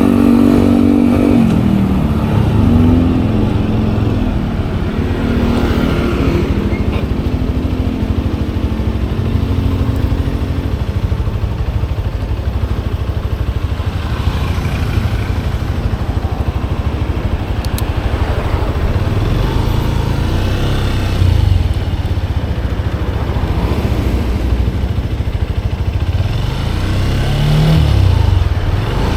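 Manual motorcycle engine running under way, the revs rising and falling through the first ten seconds or so, then settling into a steadier drone with road and wind noise. The revs pick up briefly twice near the end.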